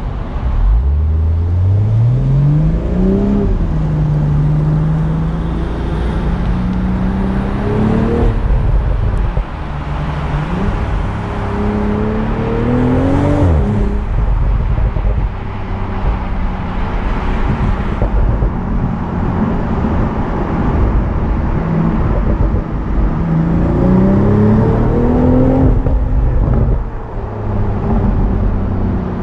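BMW Z4 M40i's turbocharged 3.0-litre inline-six accelerating hard four times, its pitch climbing steeply and dropping suddenly at the end of each pull, holding a steady note between pulls. Road and wind noise run underneath.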